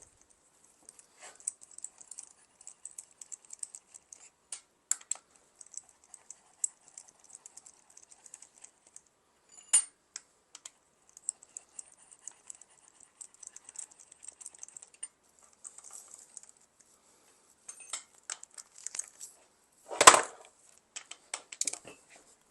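Scattered light metallic clicks and clinks of hand tools and loosened bolts being worked on a Mazda 13B rotary engine, with a sharper knock about ten seconds in and a louder clatter about twenty seconds in.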